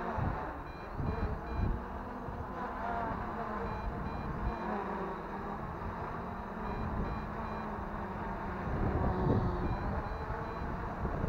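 MJX Bugs 3 Pro quadcopter on Graupner 8x4 propellers buzzing as it hovers in strong, gusty wind, with wind rumbling on the microphone. Groups of short high-pitched beeps sound several times, a few seconds apart.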